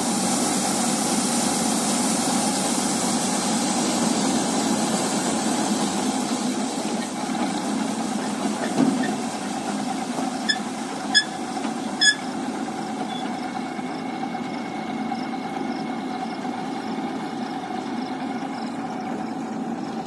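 Vishal 435 combine harvester's diesel engine running steadily while it unloads wheat grain through its unloading auger into a trolley; the grain stream stops partway through. A few short sharp clicks come about halfway through.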